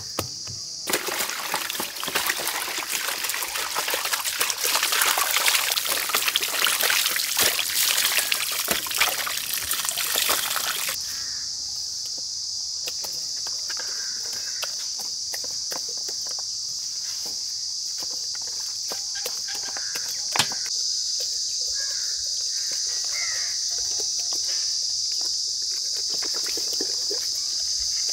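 Hands squelching and sloshing through a wet spice paste in a large steel pan for about ten seconds. After that, crickets chirp steadily, with light handling clicks and one sharp knock about twenty seconds in.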